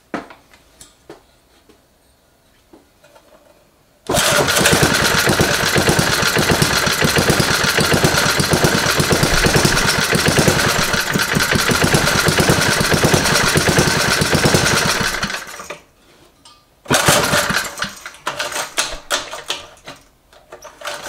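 Briggs and Stratton single-cylinder edger engine, running on propane fed by hose straight into its carburetor opening with no carburetor, catches about four seconds in and runs loudly for about eleven seconds before cutting out abruptly. About a second later it fires again in a short, uneven burst that breaks up into scattered pops: the propane-and-air mixture is not yet right.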